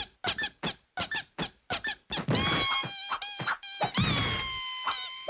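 Cartoon pony hoof steps as squeaky, rubbery sound effects: a run of short squeaks, about three a second. About two seconds in, music with longer held tones comes in, with a few more squeaks over it.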